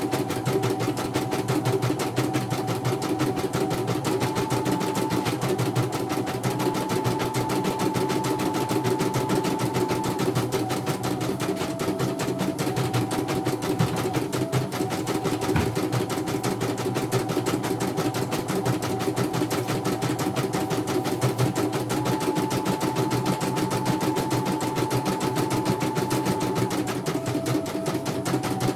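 CNY portable computerized embroidery machine stitching a design in its hoop: a rapid, steady needle chatter with a motor whine that steps up and down in pitch as the hoop moves. It runs smoothly, without trouble, after its repair.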